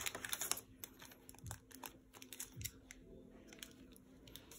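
Faint handling noise: light clicks, taps and a little plastic rustle as a shrink-wrapped deck of cards is lifted out of a plastic box insert, with a couple of soft knocks against the tray.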